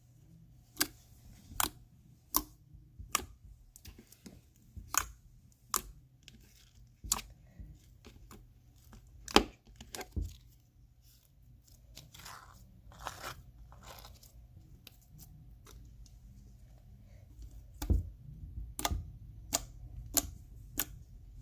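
Slime being squeezed and pressed by hand, giving a string of sharp pops and clicks roughly once a second, with softer squishing midway through and another run of pops near the end.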